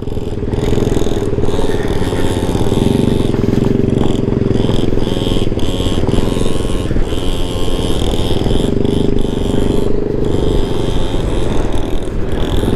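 Honda Ruckus scooter's small four-stroke single-cylinder engine running steadily at cruising speed, with rumble from riding over a gravel road.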